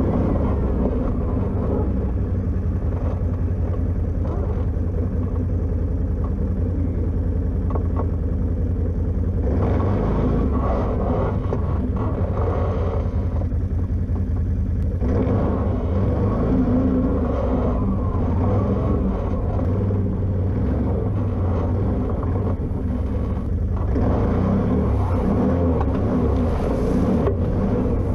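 Can-Am Outlander ATV engine running steadily at low trail speed, with a rougher, busier stretch from about ten to fifteen seconds in.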